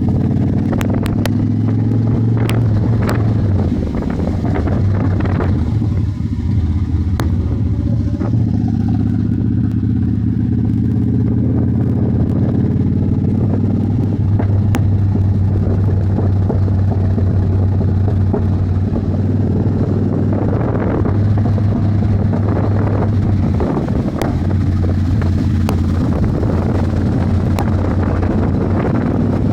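Yamaha V-Star cruiser's V-twin engine running steadily while riding, its pitch shifting a few times as the speed changes.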